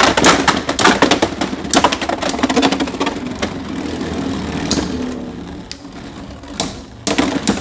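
Two Beyblade X tops spinning in a plastic stadium, with rapid clicking and sharp clashing hits over a steady whirring hum. The sound grows quieter after about five seconds as the tops slow, then a quick cluster of clicks comes near the end.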